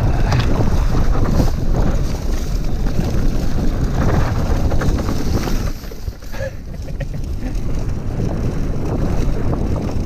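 Wind buffeting the microphone of a camera riding on an electric mountain bike: a loud, steady rush with a deep rumble that starts abruptly and dips briefly about six seconds in.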